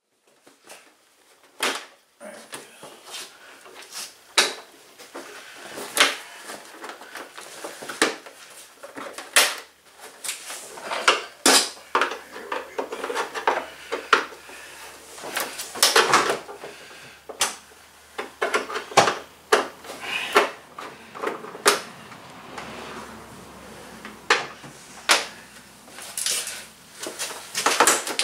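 Irregular clicks, knocks and rattles of a scooter's plastic front body panels being worked loose by hand.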